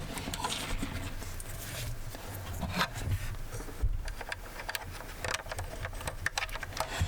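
Lego-style plastic bricks and a built model being handled: scattered light clicks and taps with some rubbing, a couple of sharper clicks around the middle.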